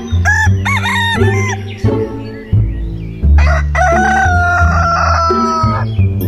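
Roosters crowing twice: a short crow about half a second in, then a longer one whose last note is held for over two seconds and falls slightly in pitch. Background music plays underneath.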